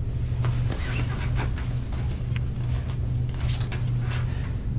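Scattered rustles and light knocks of someone shifting on a bed and handling things, over a steady low hum.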